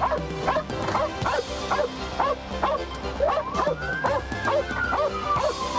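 A dog barking and yipping rapidly, about three barks a second, over background music with held notes. Partway through, a long gliding tone rises and then slowly falls.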